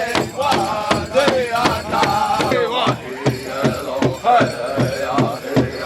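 Powwow drum group singing: voices chanting in wavering pitches over a big drum struck in a steady beat, about three strokes a second.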